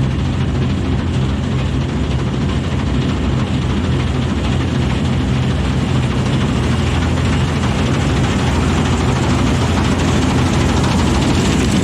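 Sampo 680 combine harvester running steadily: a low diesel engine note under a loud, even mechanical rush that does not change.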